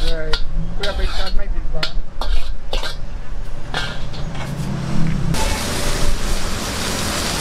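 Metal spatula clanking and scraping against a wok in quick strikes while food is stir-fried. About five seconds in, a loud, steady sizzling hiss suddenly takes over.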